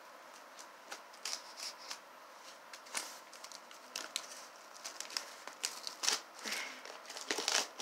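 A package being opened by hand: scattered short crackles and rustles of packaging, coming faster in the last couple of seconds.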